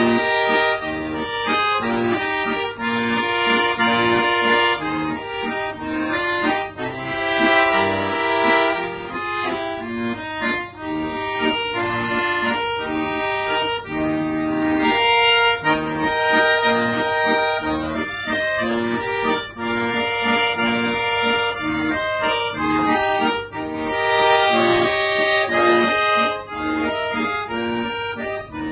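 Solo accordion playing a piece, with sustained chords under a moving melody and swells in loudness.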